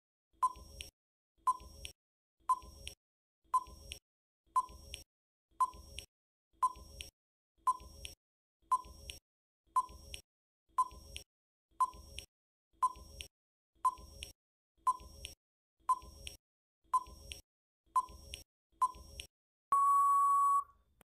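Countdown timer sound effect ticking once a second, each tick short with a brief ring. Near the end a steady beep sounds for about a second: the time-up signal.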